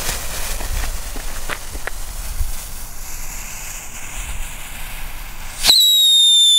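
Lit fuse of a Sirenenheuler whistling firework fizzing for several seconds, then near the end it launches with a loud, piercing whistle that slowly drops in pitch.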